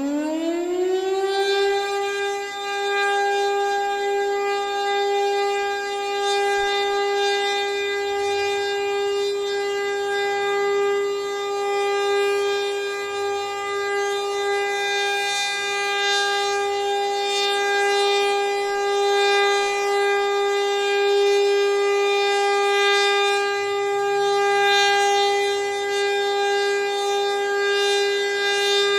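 Civil-defence siren finishing its rise in pitch about a second in, then holding one loud, steady tone with strong overtones.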